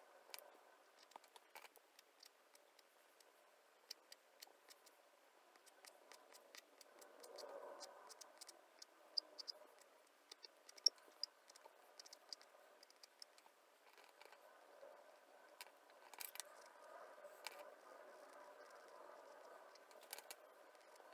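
Near silence with many faint, quick clicks and ticks at irregular intervals over a faint steady hum.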